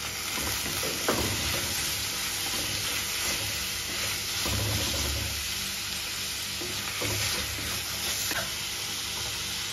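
Shallots and tomato sizzling steadily in coconut oil in an earthen clay pot as they are stirred and tossed, with a few dull low thuds now and then, the longest about halfway through.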